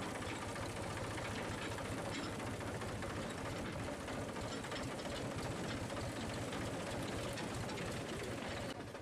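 A steady mechanical rattle, like an engine running without a break.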